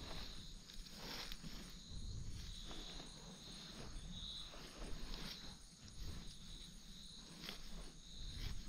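Insects chirping in short, high trills that repeat every second or so, with faint rustles and knocks.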